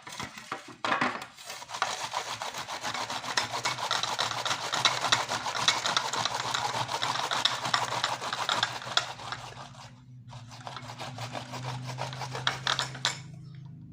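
A knob of white ginger being grated on a hand grater, in rapid rasping strokes. There is a short break about ten seconds in, and the grating stops shortly before the end.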